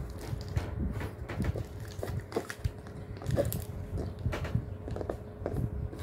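A dog chewing and biting a plastic bottle, the plastic crackling and crunching in short, irregular snaps.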